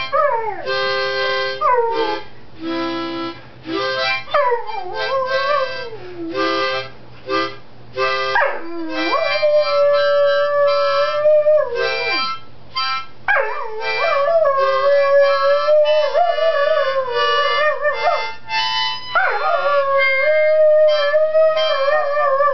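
A dog howling along to a harmonica: about five long howls, each sliding up and then holding a wavering note, over short repeated harmonica chords.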